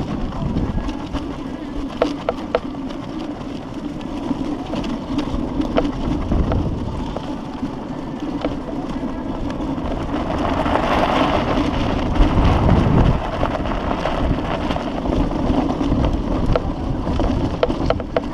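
Strong wind rushing over the microphone as a steady, heavy rumble with crackling and scattered sharp clicks, swelling louder about ten seconds in.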